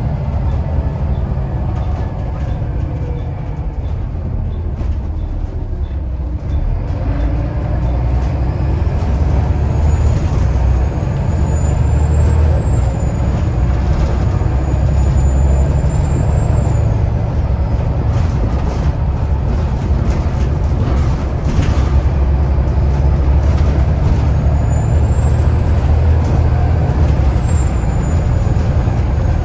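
Volvo B7TL bus's turbocharged diesel engine pulling hard, a steady low rumble. A high turbo whistle rises and falls over it, once about a third of the way in and again near the end.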